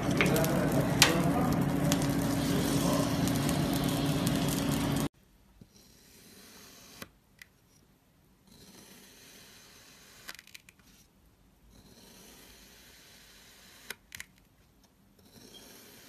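A wood fire crackling and rushing as its glowing embers are stirred in the grate, with a sharp crack about a second in; it cuts off suddenly about five seconds in. Then a knife slices through a disc of kinetic sand in four quiet, gritty strokes, with small clicks between them.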